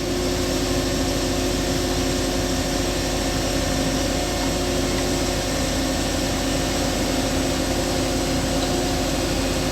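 An engine running steadily at an even speed: a constant hum carrying several steady tones, with no revving or change.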